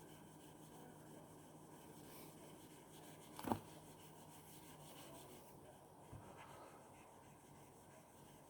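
Faint rubbing of a stainless steel broadhead blade stroked across 1500-grit wet-and-dry sandpaper, with one brief louder knock about three and a half seconds in.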